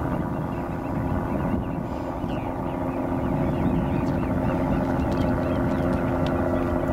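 Steady outdoor rumble with a low, even hum that grows a little stronger toward the end, and faint scattered chirps above it.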